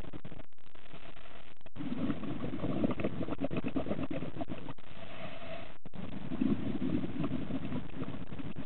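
Underwater sound of a scuba diver breathing through a regulator: bubbly, rumbling exhalations that swell twice, about four seconds apart, with quieter gaps between breaths.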